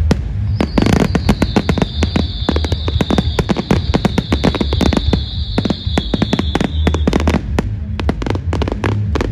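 Fireworks display: dense, rapid crackling bangs, with a high whistle that starts about half a second in, falls slightly in pitch and stops about seven seconds in.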